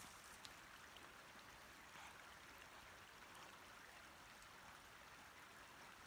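Near silence: the faint, steady rush of a small woodland creek, with a few faint ticks.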